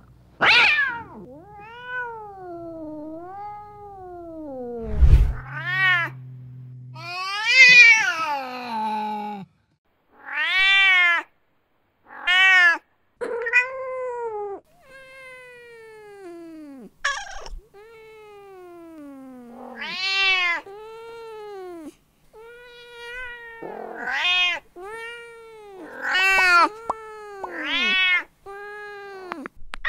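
Domestic cat meowing over and over: many separate meows, some short and some long and drawn out, the pitch rising and falling within each call. A low thump about five seconds in.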